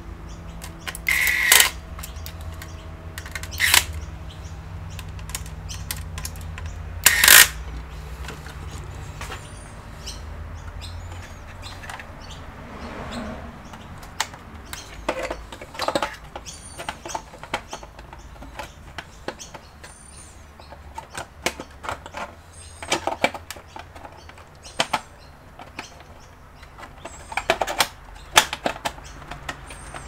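A few short runs of a pen-style electric screwdriver driving screws into a metal drive caddy, then scattered clicks and taps of the metal bracket and screws being handled and fitted into the computer's chassis.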